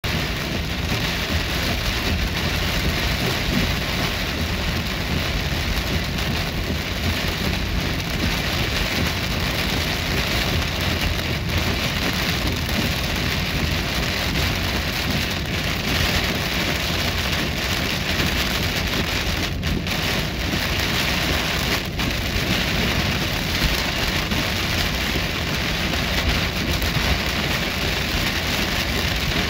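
Heavy rain pelting a moving car's windshield and roof, heard from inside the cabin: a steady, dense hiss over a low rumble of tyres on the wet road.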